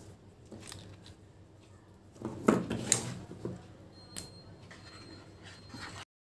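Tabletop handling of a plastic glue bottle and cardboard. A few sharp plastic clicks come about two and a half seconds in as the bottle's cap comes off, then quieter rustling as glue is squeezed onto the cardboard. The sound cuts off abruptly near the end.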